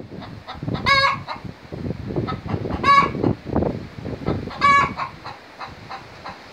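Hen's egg song after laying: a run of low clucks broken by three loud, drawn-out squawks about two seconds apart.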